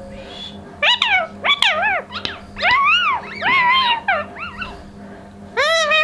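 Indian ringneck parrot calling: a quick run of short, pitched chirps that rise and fall in pitch for about four seconds, then one longer arched call near the end.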